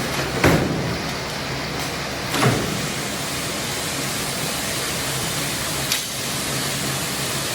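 A machine running steadily, with a continuous low hum under a noisy mechanical din and three short knocks, about half a second, two and a half seconds and six seconds in.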